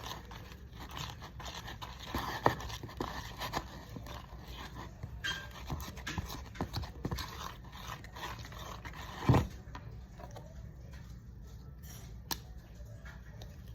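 Slime being stirred and worked in a bowl: irregular scraping and small clicks, with one heavier knock about nine seconds in.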